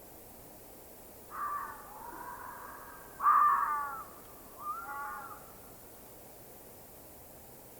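Distant fox barking three times in quick succession, the second bark the loudest. Each call is hoarse and slides down in pitch, over a faint steady hiss.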